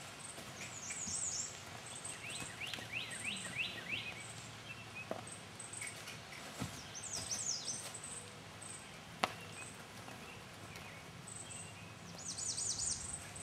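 Songbirds singing several quick, descending trilled phrases over a high, regular chirping. A single sharp click about nine seconds in.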